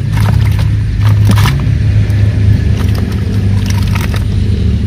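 A steady low engine drone, with a few light clicks over it.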